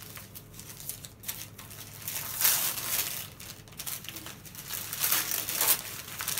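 Gift wrapping paper being crinkled and torn by hand as a present is unwrapped, in irregular rustling bursts that are loudest about two and a half seconds in and again about five seconds in.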